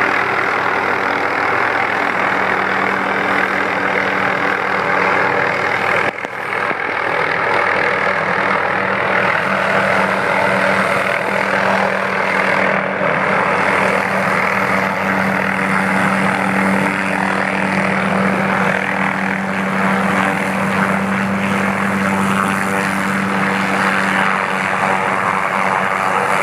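Helicopter running close by: a loud, steady rotor and turbine noise with a constant low hum, broken briefly about six seconds in.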